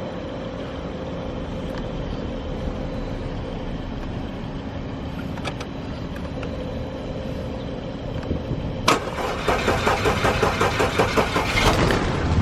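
Audi A4 B8 TSI engine running with a steady hum, then about nine seconds in a louder, uneven pulsing of roughly four beats a second as it is cranked or runs rough. The engine is misfiring from faulty fuel injectors.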